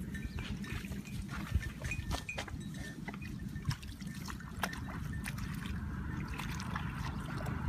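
Muddy water trickling and splashing as it is scooped up and poured out with a small plastic bucket, with scattered splashes.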